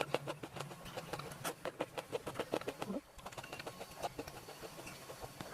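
Close-miked eating sounds: rapid, irregular crunching and smacking clicks of chewing.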